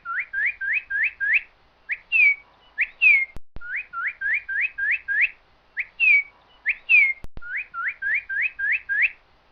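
A bird's whistled song played as a repeating loop: two falling whistles followed by a quick run of five or six rising whistles, the phrase coming round about every four seconds, with a faint click at each repeat.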